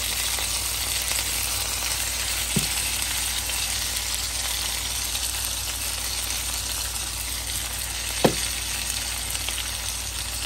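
Chicken breast medallions sizzling steadily in hot olive oil in a cast-iron skillet, with two brief knocks, one about two and a half seconds in and a louder one about eight seconds in.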